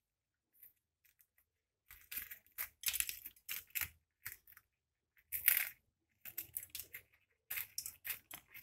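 Small knife scraping and crackling inside a slit green chilli as its seeds are scraped out, in short irregular scratches and clicks.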